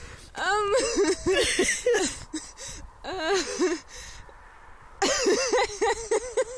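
A person's wordless voice sounds, strained and breathy, in three bouts with a short lull of about a second before the last.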